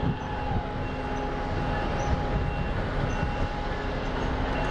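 Crane winch machinery running steadily with a drone and a held whine while lowering a sling of logs, with a few short high squeaks now and then.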